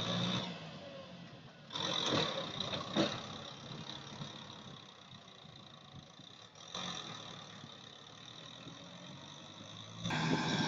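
Kubota M6040SU tractor's diesel engine working as the tractor churns through deep mud, its sound swelling and fading several times, with one sharp knock about three seconds in.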